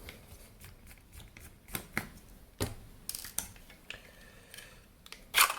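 Sharp clicks and light metallic taps, scattered at irregular intervals, from small screws, covers and parts of an electronics display unit being handled and worked apart by hand. A louder clatter comes near the end as a part comes free.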